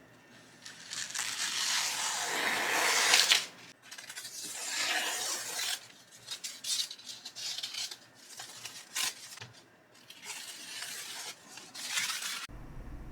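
Steel knife blade scraping across an abrasive sharpening stone in uneven strokes, with a long grinding stroke early on followed by shorter ones. This is the grinding stage that works the edge and chips out of the blade.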